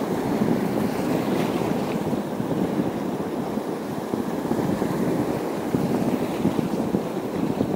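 Steady wind buffeting the microphone over the wash of sea waves breaking on the shore.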